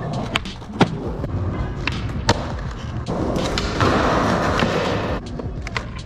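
Skateboard wheels rolling on concrete, broken by sharp tail pops and the slap of the board landing, several times. Around the middle comes a louder, longer scrape of the board grinding along a curb ledge.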